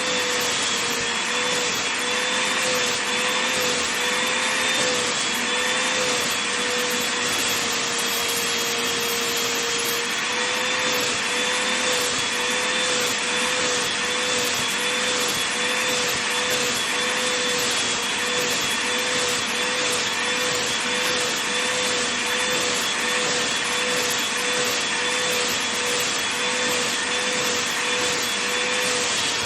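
Vacuum cleaner running continuously over a fleece blanket, a dense steady hiss with a motor whine that wavers slightly in pitch and briefly holds flat about eight seconds in.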